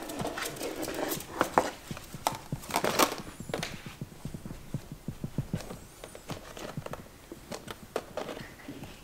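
Yorkshire terrier puppy rummaging in a plastic basket of toys in her dog bed: irregular knocks and rattles of the basket and toys, busiest in the first three seconds, then lighter.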